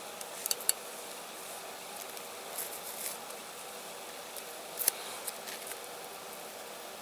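Small handling noises from hands-on model work: light clicks, taps and scrapes, with a few sharper ticks about half a second in and just before five seconds.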